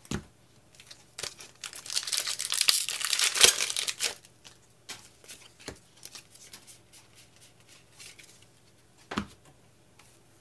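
A foil Pokémon booster pack being torn open and crinkled for about two seconds. Scattered light clicks of cards being handled follow, with a soft knock near the end.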